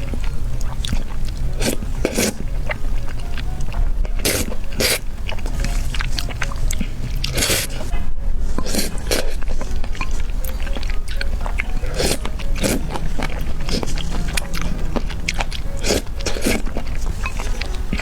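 Close-miked eating: repeated crisp bites and chewing at an irregular pace, over a steady low hum.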